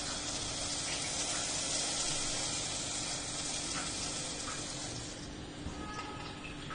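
Steady hissing from the stove as oil heats in a pan, easing off a little about five seconds in, with a few faint clicks near the end.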